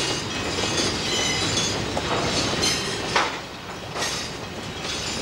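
Diesel freight train rolling past, its wheels clacking over the rails with intermittent high-pitched flange squeal, and one sharp metallic clank a little past halfway.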